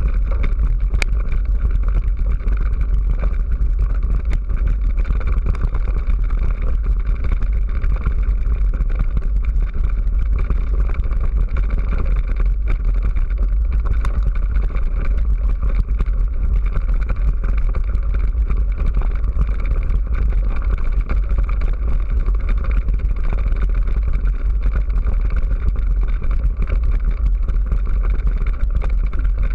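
Steady, loud wind rumble and rattling vibration on a moving camera's microphone as it travels over a rough gravel track. The low rumble is the strongest part and stays even throughout.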